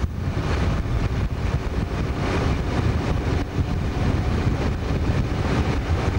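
Wind buffeting a microphone held out of the window of a moving DE II diesel multiple unit, over the train's low running rumble.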